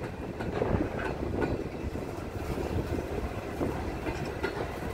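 Freight train wagons rolling past, steel wheels rumbling steadily on the rails with scattered sharp clicks.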